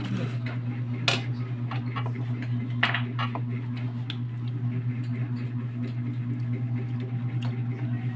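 A steady low hum throughout, with light clicks and rustling of hands handling food, paper and foil at a table while eating; two sharper clicks about one and three seconds in.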